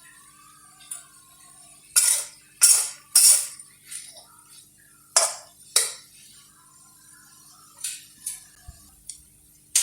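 A spatula scraping against a pan in about eight short, uneven strokes while boiled potatoes are mashed and fried with spices. Faint background music plays underneath.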